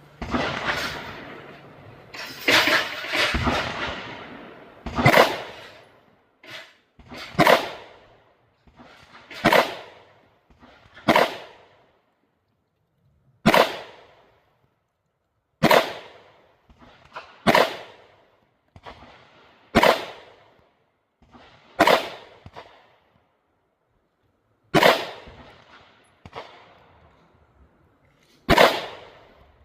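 Canik Prime pistol firing a string of single shots at a slow, steady pace, about one every two seconds, each sharp crack trailing off in a short echo. It totals a dozen or so shots, a few of them closer together in the first few seconds.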